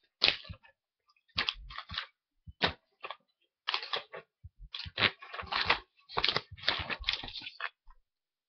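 Plastic packaging film crinkling and rustling as a new iPad is handled and unwrapped, in irregular short bursts with brief silent gaps.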